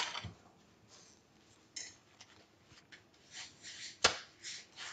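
Kitchen handling noises while rotis are being made: a light click, a few soft scrapes, and one sharp knock about four seconds in.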